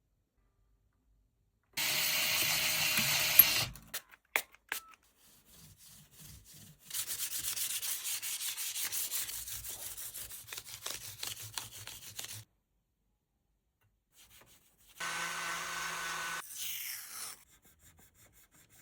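Bench work on a bass guitar during a setup, heard in three short bursts that start and stop abruptly: rubbing and sanding strokes, the longest burst about five seconds of quick repeated strokes in the middle, with two shorter bursts carrying a steady machine-like tone.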